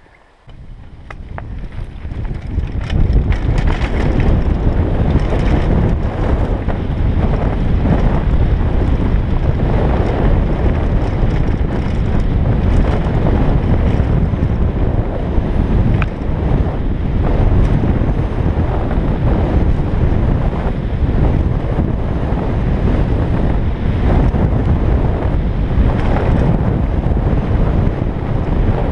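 Wind buffeting a helmet-mounted camera's microphone together with tyre rumble and rattling from a mountain bike speeding down a gravel trail. It starts quieter and swells to a loud steady rush about two to three seconds in, with scattered clicks and knocks from stones under the wheels.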